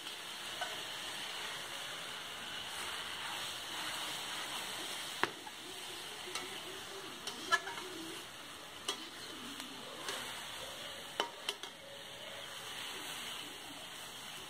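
Chopped dastal (elephant-ear) leaves sizzling as they fry in a steel kadhai, stirred with a metal spatula. A few sharp clinks of the spatula against the pan come in the second half.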